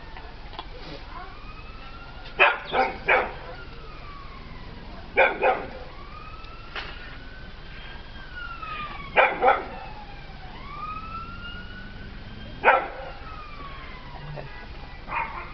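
A dog barking at a cat in short bursts of two or three barks, a few seconds apart. Behind it, a siren wails, rising and falling in pitch.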